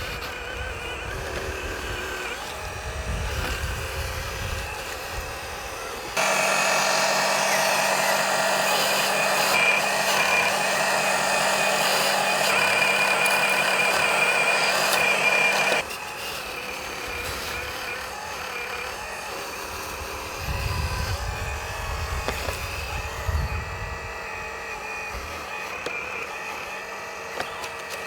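Electric motors and hydraulic pump of RC scale hydraulic construction machines whining steadily, with a much louder stretch of about ten seconds in the middle that starts and stops abruptly. Wind rumbles on the microphone at times.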